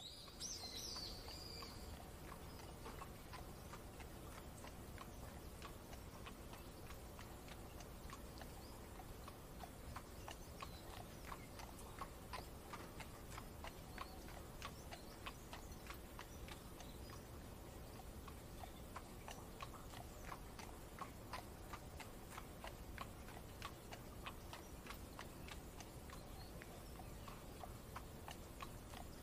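A horse's hooves clip-clopping at a steady pace, a few clops a second, over a steady low rumble. A brief high chirp sounds about a second in.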